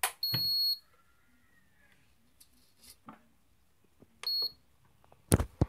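Butterfly induction cooktop's control panel beeping as its buttons are pressed: a half-second beep just after the start and a shorter one about four seconds in. Sharp knocks at the start and a louder cluster of knocks near the end.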